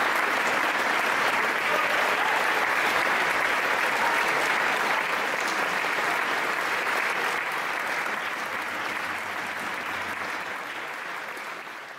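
Audience applauding steadily, the clapping slowly dying away over the last few seconds.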